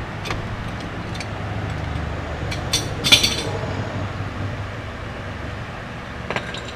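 A few sharp metallic clinks and taps, the loudest about three seconds in with a brief ring, as metal tools and brake parts are handled during a front brake job. A steady low hum, like a shop fan, runs underneath.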